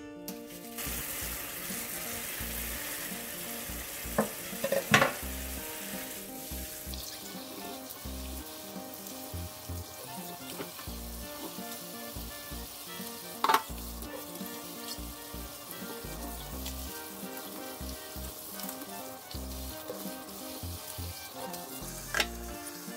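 Kitchen tap water running steadily onto bunched green garlic stalks in a stainless steel sink, starting just under a second in. A few sharp knocks break through, the loudest about five seconds in.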